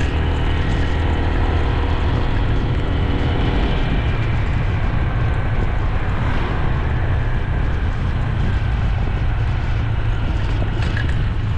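Motorcycle riding at a steady speed: the engine's steady drone mixed with wind rushing over the microphone and road noise from the tyres.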